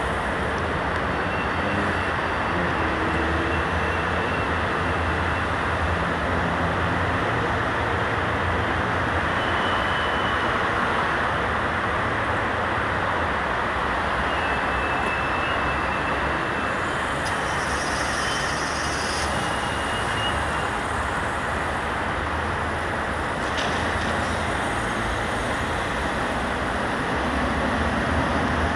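Steady vehicle noise, a continuous rumble and hiss with no single event standing out.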